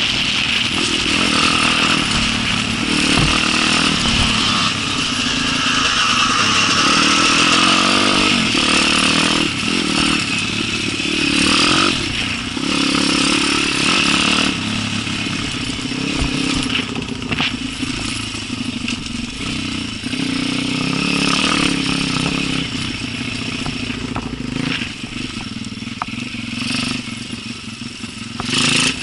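Small enduro motorcycle engine running under changing throttle on a forest trail ride, with clatter and scrapes from the bike over rough ground. The engine is quieter in the second half.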